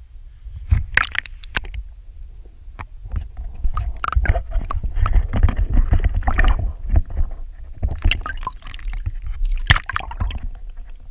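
Muffled water movement and low rumble heard through a waterproof camera case held underwater, with many knocks and bumps from handling the case.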